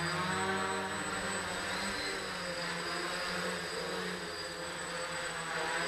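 RotorBits quadcopter's four electric motors and propellers buzzing in flight, a steady layered hum whose pitch shifts slightly as the throttle changes, a little quieter around four seconds in.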